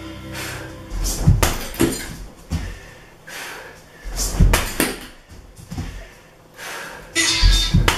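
Kicks and punches landing on a hanging heavy bag: a series of dull thuds with quieter gaps between them, loudest in a cluster near the end.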